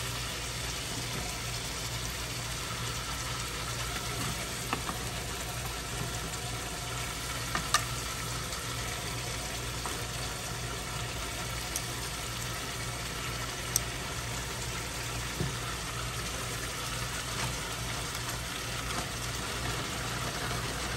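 Seasoned chicken pieces frying in hot olive oil in a nonstick pan on high heat: a steady sizzle, the pan hot enough to brown the meat rather than stew it. A few sharp clicks of metal tongs against the pan break in now and then.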